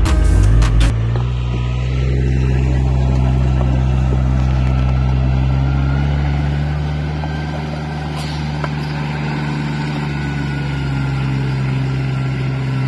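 Yanmar riding rice transplanter's engine running steadily at a constant pitch while the machine drives and plants seedlings.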